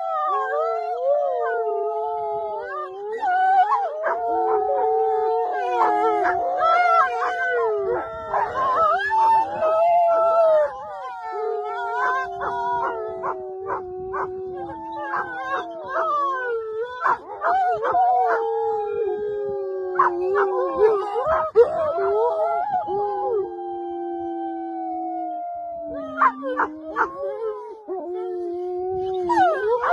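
Two wolf-like dogs howling together with a woman howling along: several long, wavering howls overlap one another, broken now and then by short yelps.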